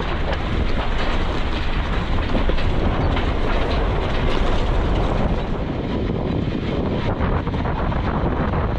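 Jeep Wrangler JK driving: a steady low rumble of engine and road, with many quick knocks and rattles throughout, and wind buffeting the microphone.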